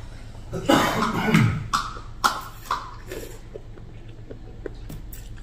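A person slurping thin corn vermicelli noodles from a bowl of soup. There is one long, loud slurp about a second in, then a few short slurps, then only faint small clicks.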